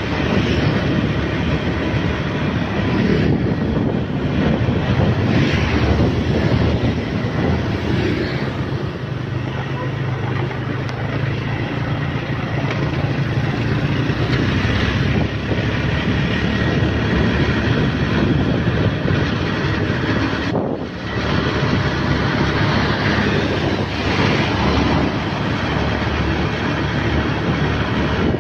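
Motorcycle engine running steadily while riding, over a constant rush of wind and road noise. The sound drops out briefly about two-thirds of the way through.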